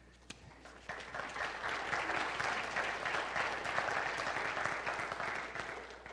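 Church congregation applauding, building up about a second in and dying away near the end.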